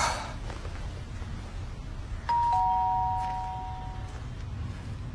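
Two-tone doorbell chime: a higher note and then a lower 'ding-dong' note, rung once about two seconds in, each note fading away slowly.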